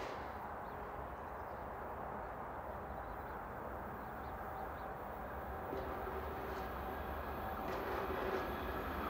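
An electric train approaching along the line, its running noise a low steady rumble that slowly grows louder, with a faint steady hum.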